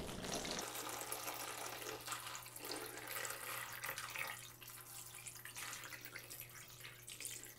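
Water poured in a steady stream from a plastic pitcher into a glass bowl of sodium polyacrylate powder, splashing onto the swelling gel as the polymer absorbs it. The pouring sound gets softer about halfway through.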